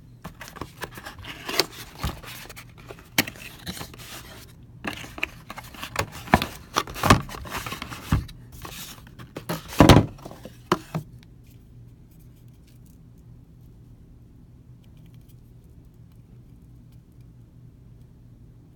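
Cardboard box being handled and opened by hand: flaps rustling and scraping, with irregular knocks as the boxed oil filter is slid out, loudest about ten seconds in. The handling stops about eleven seconds in, leaving only a faint steady hum.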